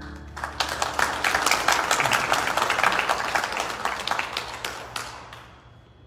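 Audience applauding. The clapping starts about half a second in and dies away near the end.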